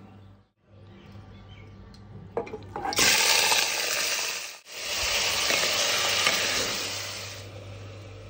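Raw chicken pieces sizzling in hot oil in a pot, a loud frying hiss that starts suddenly about three seconds in after a few light knocks, breaks off for a moment, comes back and dies down near the end.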